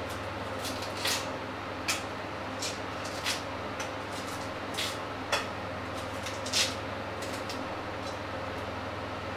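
Hard-boiled egg being cracked and peeled over a ceramic bowl: about ten short, irregular clicks and taps of eggshell and utensil against the bowl, the loudest about two-thirds of the way in, over a steady low hum.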